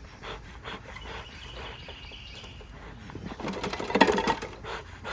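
Handling noise from lighting a beekeeper's smoker: scattered clicks and rustling, with a brief louder burst of crackling clatter about four seconds in.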